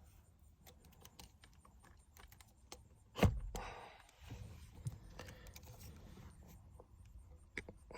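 Light plastic clicking and tapping as hands work the steering wheel and airbag parts of a pickup truck, with one louder knock about three seconds in followed by a brief rustle.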